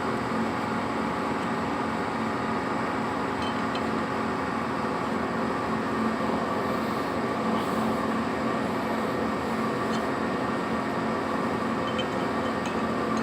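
Lathe running steadily, a continuous machine hum with a few faint ticks.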